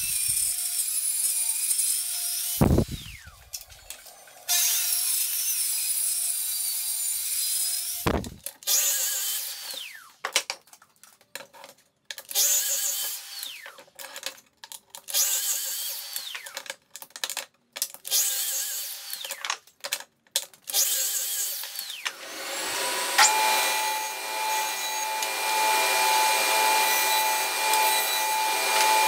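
A Festool plunge-cut track saw makes two long rip cuts through thick planks along a guide rail, with knocks between them. Then a Festool sliding mitre saw makes a series of short crosscuts, its blade winding down after each one. Near the end a machine spins up to a steady hum and keeps running.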